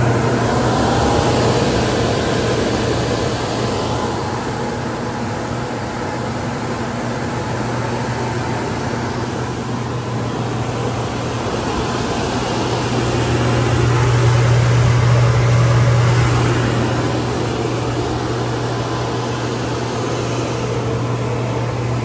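OceanAire 20AC2412 two-ton portable spot cooler running: a steady low hum under a rush of fan air, swelling louder for a couple of seconds past the middle.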